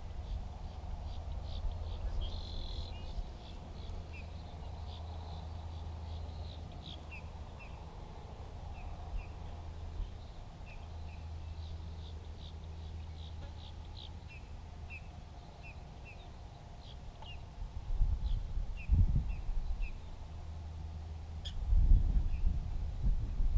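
Birds calling, short high chirps repeated every second or so, over a steady low hum. Two bursts of low rumble come near the end.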